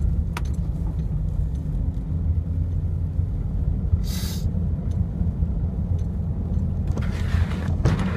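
Land Rover driving, heard from inside the cabin: a steady low rumble of engine and tyres. There is a brief hiss about four seconds in and a softer rustle near the end.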